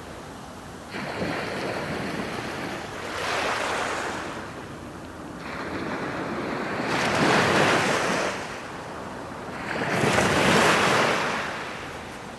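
Small waves breaking and washing up a flat sandy beach, the surf swelling three times, about every three to four seconds.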